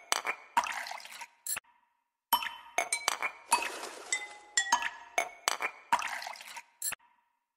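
Background music of bright, bell-like struck notes in a repeating phrase. It cuts to silence for under a second about one and a half seconds in, and again near the end.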